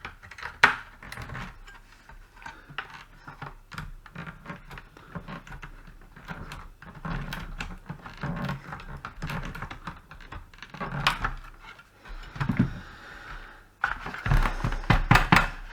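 Side cutters snipping off the stubs of drilled-out plastic rivets, with small plastic parts being handled: an irregular scatter of sharp clicks and snaps, the loudest about half a second in.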